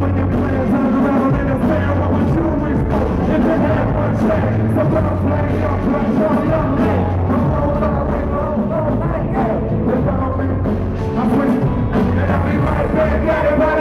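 Live band music at concert volume, with drums, electric guitars and keyboards and a singer's voice over it.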